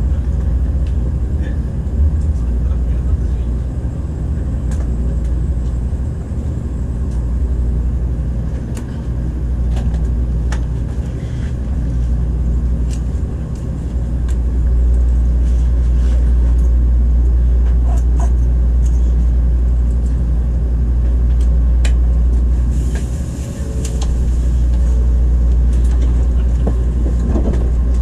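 Interior running noise of a Tokaido Shinkansen car as the train rolls slowly alongside a station platform and draws to a stop: a steady low rumble with scattered small clicks and knocks.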